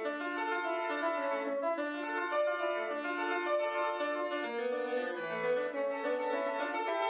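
Grand piano being played: a quick, busy passage of many overlapping notes in the middle and upper range, with a lower note sounding about five seconds in.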